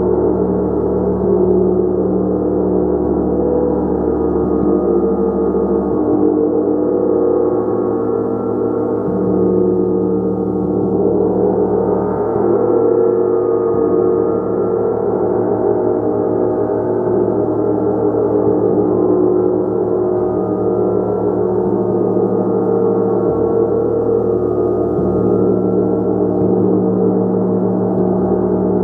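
Gong played continuously: a dense, sustained wash of many overlapping tones, holding at a steady level with slow swells and no separate strikes.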